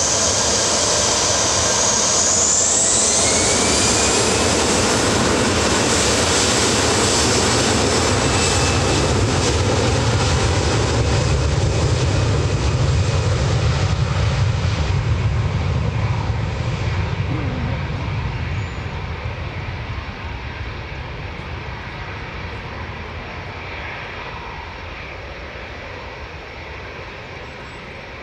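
Airbus A321-213 airliner's twin CFM56 turbofan engines spooling up to takeoff thrust, with a rising whine a couple of seconds in. The jet noise of the takeoff roll stays loud through the first half, then fades steadily as the aircraft accelerates away down the runway.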